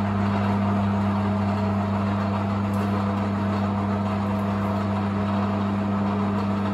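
Optimum 3008 bench lathe running steadily at its slowest spindle speed, 68 rpm, during machine tapping: a steady motor hum.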